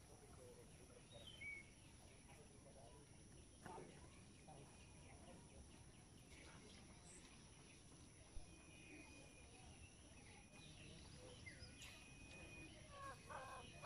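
Near silence: faint rural outdoor ambience with a few short, distant bird chirps.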